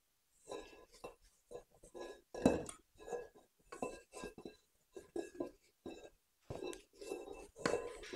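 Spatula scraping and knocking against a stainless steel mixing bowl in about a dozen quick strokes, the metal bowl ringing faintly after each, as macaron batter is folded.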